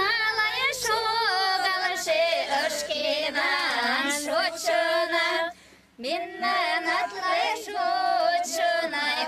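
Mari women singing a welcome song to guests in high voices, with wavering held notes and a short break about five and a half seconds in.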